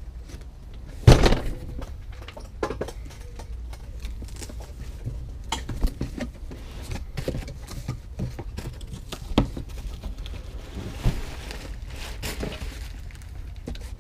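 Cardboard exhaust-muffler box being handled and unpacked: a loud thump about a second in, then scattered knocks and scraping of cardboard flaps, with plastic wrapping rustling later as the wrapped muffler is pulled out.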